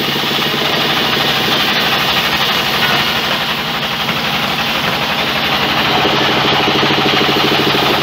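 Large vertical band saw running and cutting lengthwise through a big log, its belt-driven machinery making a steady, loud sound with an even rapid pulsing.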